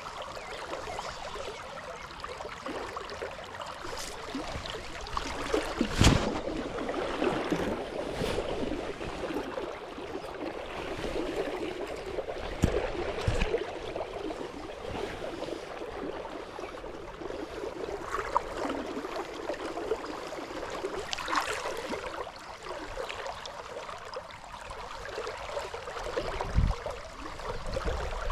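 River water flowing and gurgling steadily, broken by a few sharp knocks or splashes, the loudest about six seconds in.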